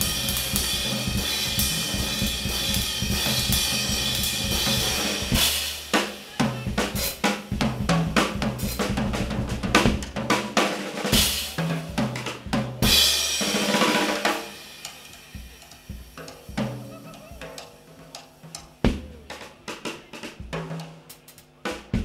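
Jazz drum solo on a full drum kit played with sticks: snare, toms, bass drum and cymbals. About the first five seconds are a dense cymbal wash, then come separate loud strokes on drums and cymbals. From about two-thirds of the way in it drops to softer, sparser hits.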